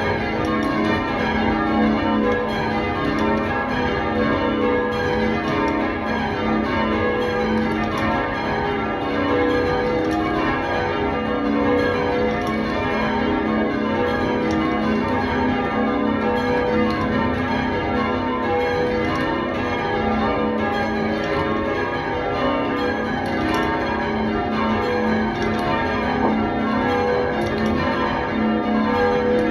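Church bells change ringing: a ring of tower bells struck one after another in a continuous, even rhythm, their tones overlapping and ringing on.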